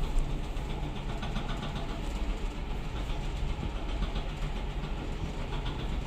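Elevator car travelling in its shaft: a steady low rumble with faint rattling over it.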